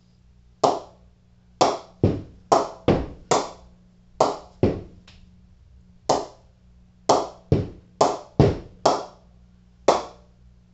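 A cricket ball bounced repeatedly off the face of an SG HP Icon English-willow cricket bat: about sixteen sharp knocks at uneven intervals, each with a short ring. This ring is the bat's ping, which testers use to judge a blade, and on this bat it is an excellent ping.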